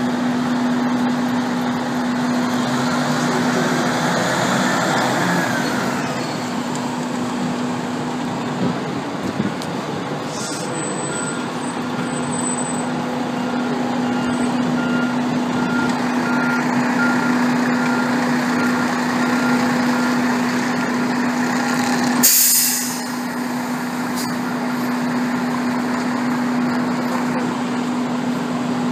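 Diesel engine of a Seagrave fire engine running with a steady hum as the rig is manoeuvred and backed into its firehouse. A reversing alarm beeps about once a second through the middle, and a sharp hiss of air brakes sounds about two-thirds of the way through.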